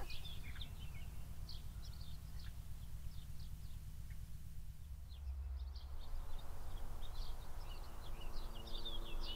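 Small birds chirping on and off over a steady low outdoor rumble; the chirping gets busier in the second half, when a faint steady hum joins the background.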